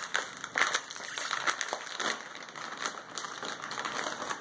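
A Lay's Poppables chip bag crinkling as it is handled, with irregular crackles.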